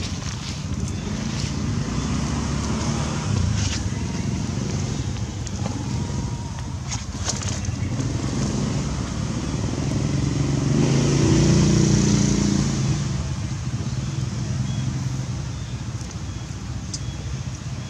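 Steady low rumbling noise with a low, engine-like hum that swells about ten seconds in and fades again, like a motor vehicle passing.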